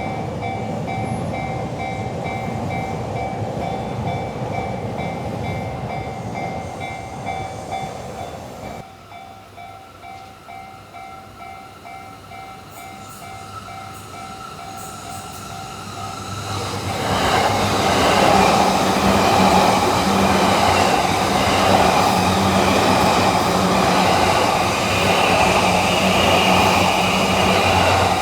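Japanese railway level-crossing alarm bell ringing in a steady repeating pattern over train noise. The sound drops sharply about a third of the way in, and from about halfway a train passes loudly through the crossing until the end.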